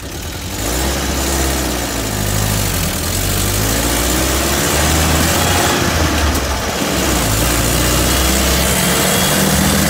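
Rover's driveline heard from beneath the moving vehicle, by the gearbox casing and propeller shaft: steady road and drivetrain noise over a low drone, with a whine that rises and falls in pitch. This is the driveline noise that the owner is trying to track down.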